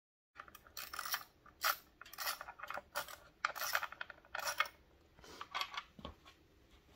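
Small metal parts clinking and rattling as the breather bolts are turned out by hand and the stock air cleaner backing plate is worked off a Harley-Davidson Milwaukee-Eight engine. The clinks come quickly and close together for the first four or five seconds, then thin out and grow fainter.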